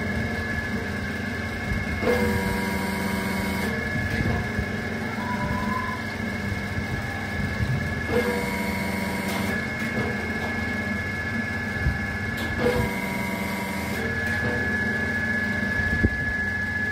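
Electric motor and hydraulic pump of a 10-ton hydraulic press's power pack running steadily with a hum and a high whine. The whine changes every few seconds as the control valve lever is shifted, putting the pump on and off load while the ram moves.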